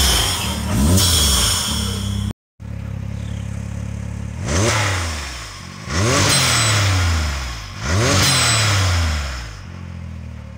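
Can-Am Maverick X3 Turbo R's turbocharged three-cylinder engine, fitted with a blow-off valve, revved in short throttle blips from idle. There is one blip near the start, then after a moment of silence three more blips about two seconds apart, each rising in pitch and falling back, before it settles to a steady idle.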